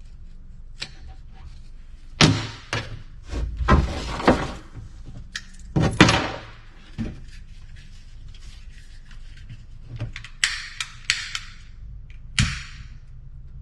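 Knocks and thunks with short scraping as parts are handled in a wooden kayak hull during seat fitting, then a quick run of sharp clicks about ten seconds in and one last knock near the end.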